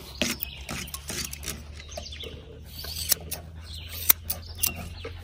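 Grooming shears snipping and a metal comb working through a dog's long coat: scattered sharp clicks at an uneven pace, over a steady low hum.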